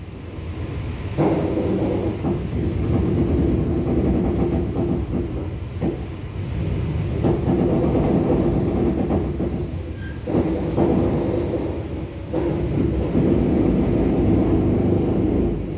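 EP2D electric multiple unit running along the line, heard from inside the carriage: a steady rumble with clickety-clack of the wheels and louder surges every second or two.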